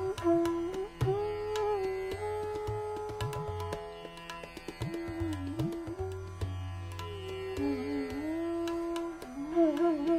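Hindustani classical bansuri flute playing a gliding melody in Raga Bhupali, with tabla strokes beneath, the low drum sliding in pitch now and then.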